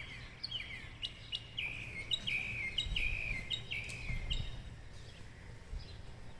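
A flock of birds calling from trees: many short, overlapping calls that each drop in pitch, thickest through the middle and thinning toward the end.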